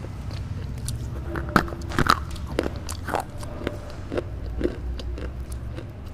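Close-miked chewing of a red slate bar. Sharp, irregular crunches and crackles come about every half second over a steady low rumble.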